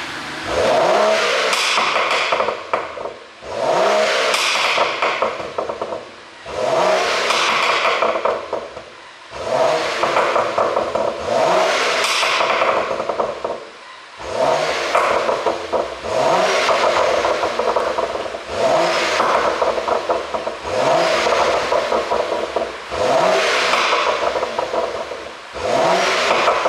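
BMW 740i's turbocharged straight-six revved about ten times in even succession. On each drop off the revs the exhaust pops and crackles on the overrun, the sound of a pop-and-crackle ECU tune.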